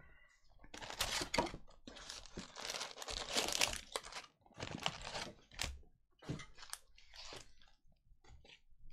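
Cellophane-wrapped retail cello packs of Panini Mosaic football cards being torn open, the plastic wrappers crinkling and crackling. The crackling is dense through the first half and breaks into shorter separate bursts after that.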